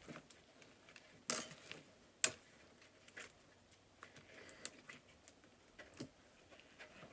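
Sticky slime being squeezed and pulled by hand: faint scattered squelches and small clicking pops, with a brief crackling burst and a sharp snap in the first few seconds.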